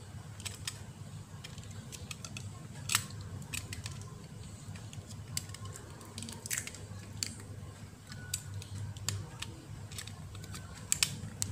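Irregular small clicks and scrapes of a utility-knife blade prying at the plastic lower housing of an opened smartphone, over a low steady hum.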